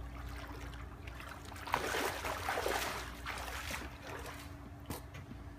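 Swimming-pool water sloshing and splashing as a person in waders moves through it waist-deep, swelling about two seconds in and easing off, with a sharp knock near the end. A faint steady hum runs underneath.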